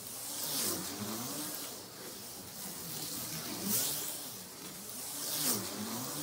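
HO slot car on a Tyco 440 X2 wide-pan chassis running laps on the track, its small electric motor whining and pickup shoes hissing along the rails. The sound swells and the whine rises and falls in pitch each time the car comes close, several times over.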